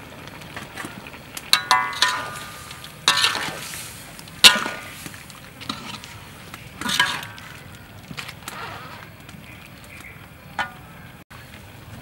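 Metal ladle clanking and scraping against a metal wok while stirring a stir-fry: several sharp clanks that ring briefly, spaced irregularly, the loudest about four and a half seconds in.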